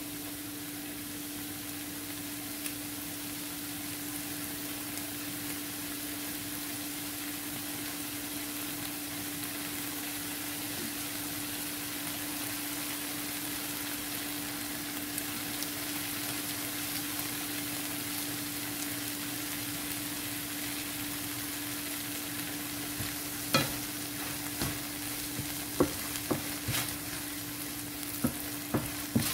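Diced tomatoes and onions sizzling in a frying pan: a steady frying hiss with a steady hum underneath. In the last several seconds a wooden spoon knocks and scrapes against the pan as the sauce is stirred.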